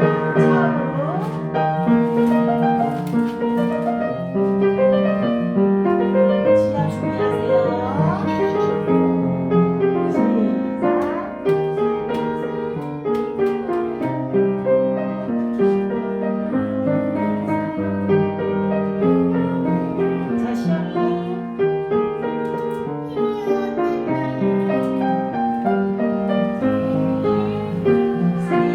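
Piano playing a steady children's-song accompaniment, with faint singing voices barely audible over it.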